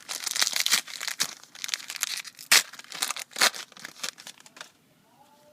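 Trading-card pack wrapper being torn open and crinkled: a quick run of sharp crackles that stops about four and a half seconds in.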